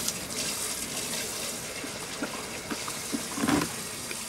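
Water running steadily from an outdoor tap.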